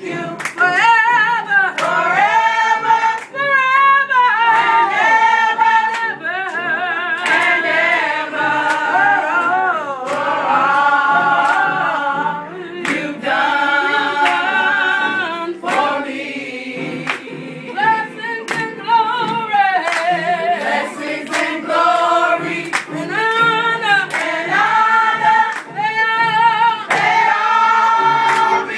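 A group of voices singing a gospel song together without instruments, with hand clapping.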